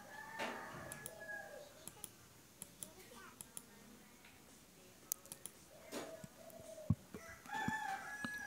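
A rooster crowing faintly in the background: one held call of about a second near the start and another near the end, with a few faint clicks in between.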